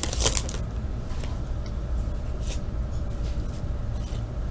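Trading cards being pulled from a torn-open foil pack and thumbed through by hand: a few faint, soft rustles and slides over a steady low hum.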